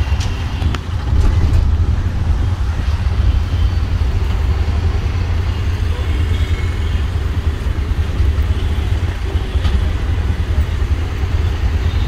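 Steady low rumble of idling road traffic, the auto-rickshaw's own engine and the scooters and cars waiting around it, heard from inside the open-sided auto-rickshaw, with a few faint clicks.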